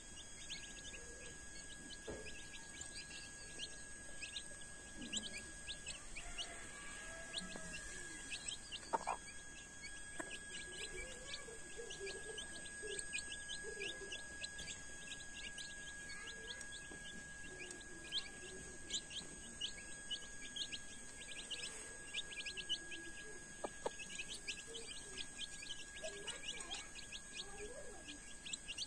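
Young chicks peeping constantly, a busy stream of short, high, falling cheeps, while the mother hen gives soft, low clucks among them as the brood feeds.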